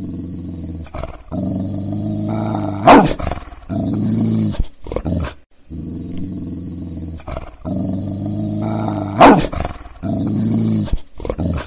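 A deep dog growl that swells into one sharp, loud bark about three seconds in. The same growl-and-bark recording then plays a second time.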